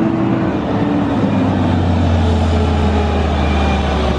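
Engine of a large vehicle running nearby: a steady low drone that sets in about a second in, with a pitched hum above it that slowly sinks in pitch.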